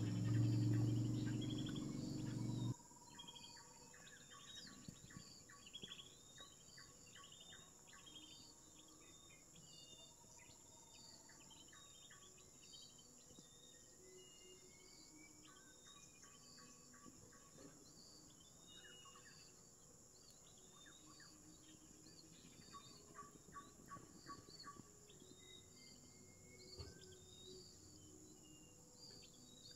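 Faint outdoor ambience: a steady high-pitched insect drone with many short bird chirps and trills scattered throughout. A louder low hum stops abruptly about three seconds in.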